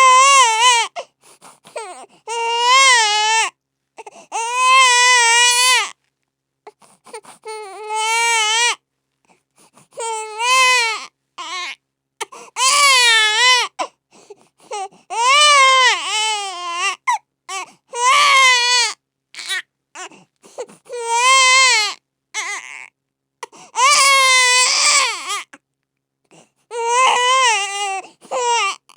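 A baby crying: a string of wailing cries, each about one to two seconds long with a wavering pitch, broken by short pauses.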